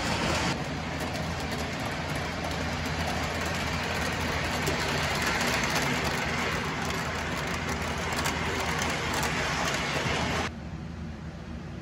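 O-gauge model passenger cars rolling past on three-rail track, a steady rumble of metal wheels on the rails. The sound drops away abruptly near the end.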